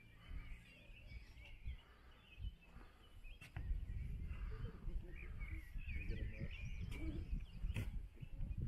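Birds chirping and singing, with wind buffeting the microphone as a low rumble that grows heavier about three and a half seconds in. A couple of sharp clicks come through.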